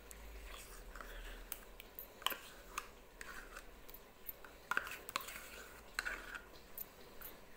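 A spoon scooping creamy yogurt into a glass bowl of cream cheese: soft scraping with a few light, irregular clicks.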